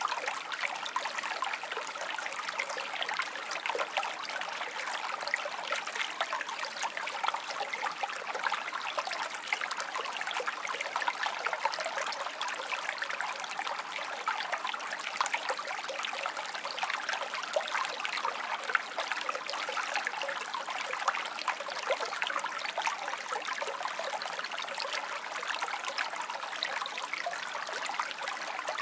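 Small water stream trickling steadily: a continuous run of many little splashes and gurgles, light and high, with no deep rumble.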